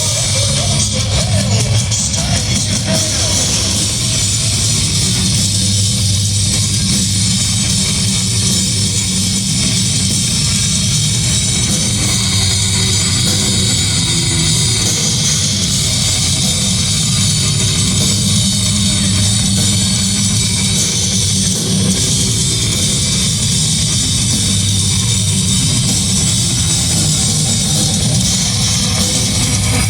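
Live heavy metal band playing loud and without a break: distorted electric guitars over a drum kit with constant cymbals.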